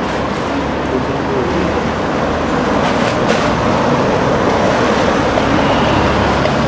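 Loud, steady rumbling background noise, with faint distant voices blended in.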